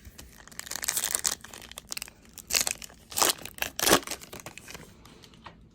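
Crinkling and tearing of a trading-card pack wrapper being ripped open and handled, in a series of rustling bursts, the loudest near the middle.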